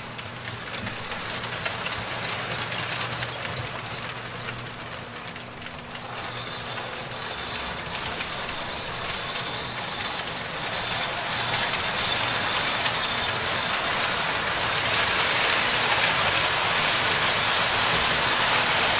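O gauge three-rail toy train running on the layout track. Its wheels rattle over the rails over a faint steady hum, and it grows steadily louder as it comes closer.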